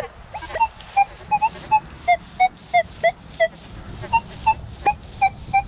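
Metal detector audio giving a rapid string of short, choppy beeps, about two to three a second, wavering in pitch as the coil sweeps over iron-rich ground. The choppy, broken response is one that reads as an iron target, not a good one.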